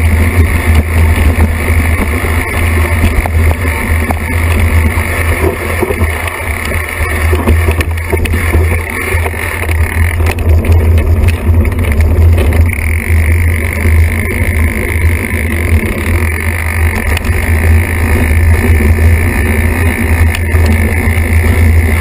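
Mountain bike descending a dirt singletrack, heard through a bike-mounted camera: a steady low rumble of wind and trail chatter with rattling from the bike, and a higher hiss that fades for a couple of seconds about halfway through.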